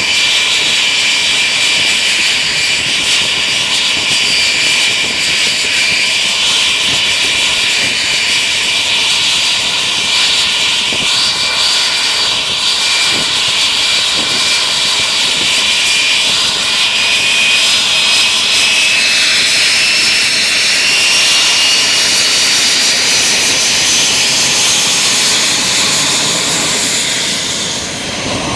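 Douglas A-4C Skyhawk's Wright J65 turbojet running, a loud steady high-pitched whine over a roar. In the last third the whine rises in pitch as the jet begins to taxi.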